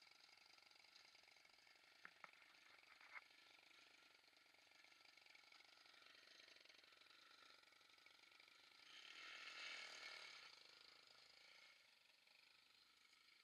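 Near silence with faint steady background noise, a few sharp clicks about two to three seconds in, and a brief faint swell of noise around nine to ten seconds.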